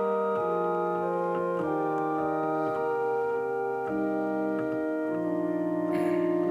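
Organ playing slow, held chords that change every second or so, as quiet meditative music.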